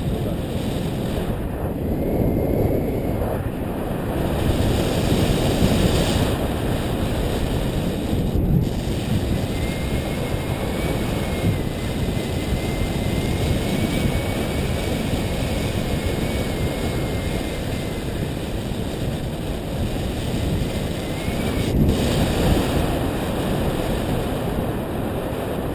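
Airflow rushing over the camera microphone of a paraglider in flight: a steady, dense wind noise.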